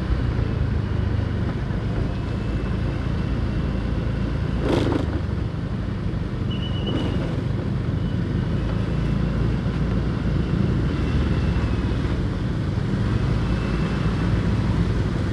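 Motorcycle running steadily while riding along a city street, with a brief sharp noise just under five seconds in and a short high beeping tone about a second and a half later.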